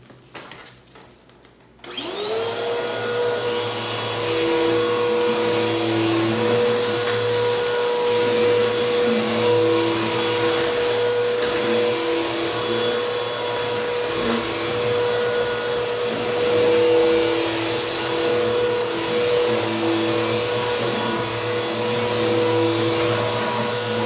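Bissell upright vacuum cleaner switched on about two seconds in, after a few handling clicks. Its motor spins up quickly to a steady high whine and keeps running as it is pushed over carpet.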